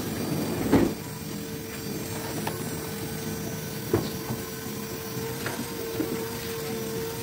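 A small motor running steadily with a constant hum, with a few sharp knocks and clicks.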